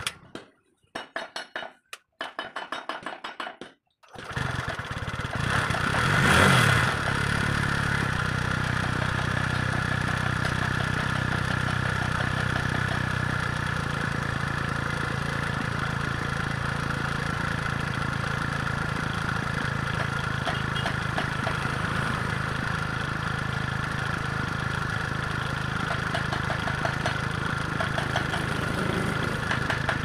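Small TVS motorcycle engine firing in short broken pulses, catching about four seconds in, revving up and back briefly around six seconds, then idling steadily.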